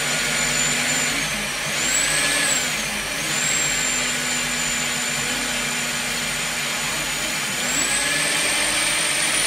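Electric spring-cable drain-cleaning machine running, its motor whining steadily as the cable turns in a clogged floor drain. The whine dips and recovers twice in the first few seconds and climbs near the end.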